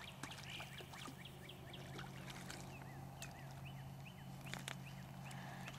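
Faint splashing and lapping of pond water as a hooked catfish is pulled in at the bank.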